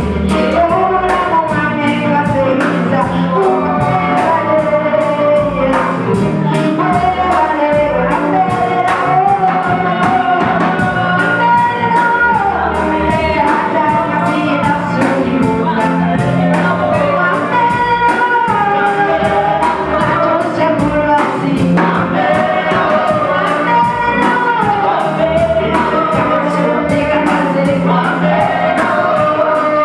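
Gospel worship music: voices singing over a band, with a low bass line and a steady drum beat.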